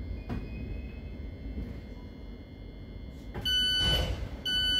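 Low rumble of the Thameslink train's carriage as it comes to a stop, then about three and a half seconds in the door warning tone starts: loud repeated electronic beeps, each about a second long, sounding twice, with a brief rush of air as the doors slide open at the platform.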